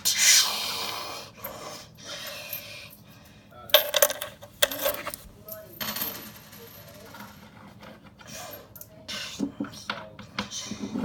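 Small hard objects rattling, clinking and clattering against one another and against a surface as they are shaken and tumble, in uneven bursts with the loudest clatters at the start, about four seconds in and near the end.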